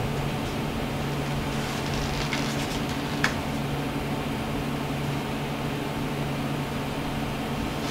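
A steady low mechanical hum, with a single faint click about three seconds in.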